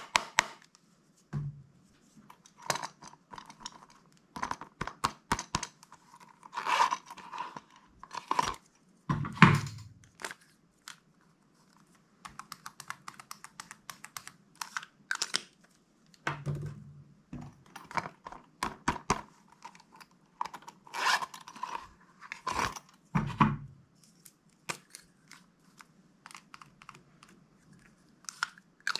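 Slime being worked by hand: an irregular run of wet clicks, pops and crackles, with a few louder soft thuds.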